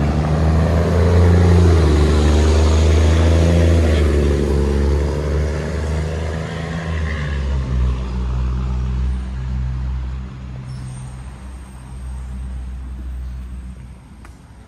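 A heavy vehicle's engine running close by: a deep, loud hum that is strongest in the first few seconds, then slowly fades away.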